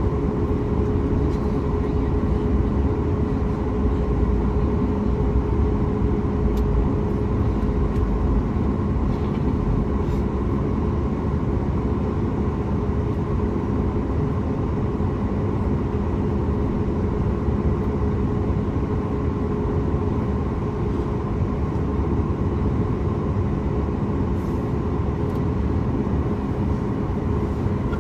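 Cabin noise of a Boeing 737 MAX 8 on the ground with its CFM LEAP-1B engines at low power: a steady rumble with an even hum that neither rises nor falls.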